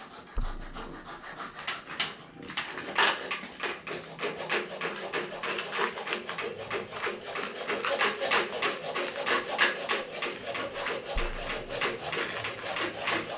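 Coping saw cutting a cope joint in wooden quarter round trim: quick, even back-and-forth strokes, about three a second, that pick up after a slower start.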